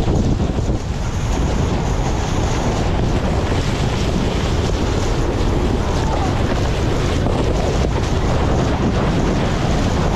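Steady wind rumble on the microphone of a snowboarder riding fast downhill, over the hiss of the board sliding through slushy snow.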